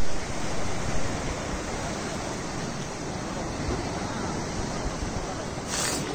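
Sea surf washing against rocks and a sea wall: a steady rush of water noise, with a brief louder hiss near the end.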